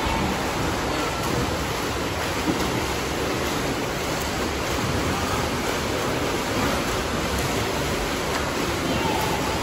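Steady rushing noise of water, as of swimmers splashing in a swimming pool, with no distinct separate splashes.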